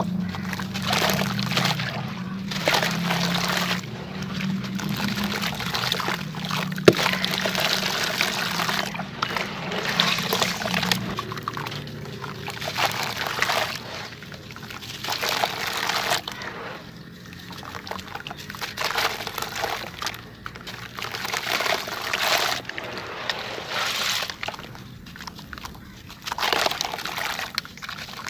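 Clumps of wet sand and mud crumbling and falling into water, sloshing and trickling in repeated rushes every second or two. A low hum sits under the first part and stops about eleven seconds in, and there is one sharp click about seven seconds in.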